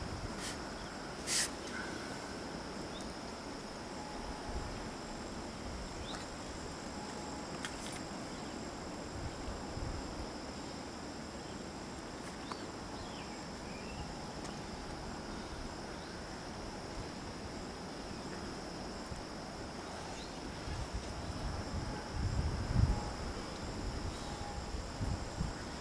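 A steady, high-pitched insect chorus drones on without a break. There is a sharp click about a second in, and a low rumble near the end.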